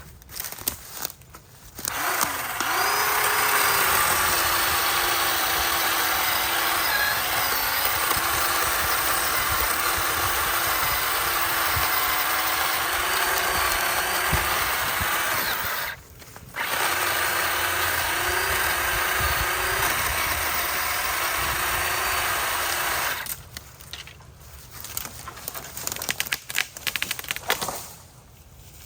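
Black & Decker 20-volt battery chainsaw's electric motor whining steadily as the chain cuts through a tree trunk, its pitch wavering under load. It stops briefly about midway, runs again for several seconds and then stops, leaving quieter irregular noises.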